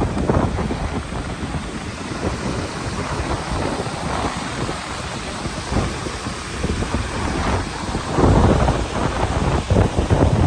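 Waterfall running: a loud, steady rush of falling water, with low rumbling surges about eight seconds in.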